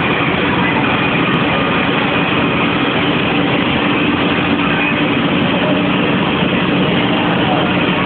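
A heavy engine running steadily: a constant low hum under dense noise, with no change in level.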